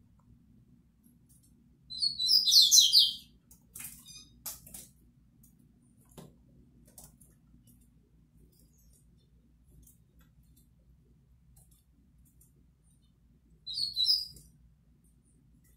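Caged coleiro (double-collared seedeater) singing in two short, high-pitched bursts: about a second of song near the start and a briefer phrase near the end, with a few sharp single notes soon after the first.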